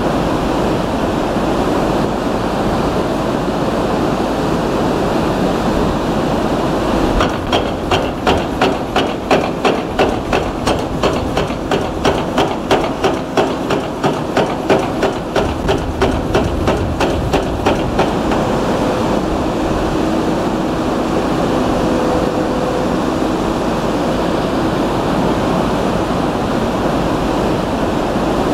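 Water rushing steadily through the dam's spillway bays. An excavator's hydraulic breaker hammers the concrete spillway in rapid, evenly spaced blows, several a second, starting about a quarter of the way in and stopping some ten seconds later.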